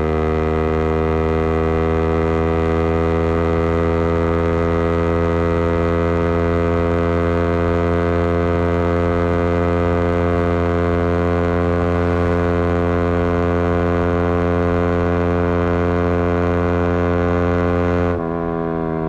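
Yamaha MT-15's single-cylinder engine through a Leo Vince aftermarket exhaust with a custom bend pipe, ridden under steady throttle with the revs climbing slowly. About 18 seconds in the throttle closes and the revs fall away.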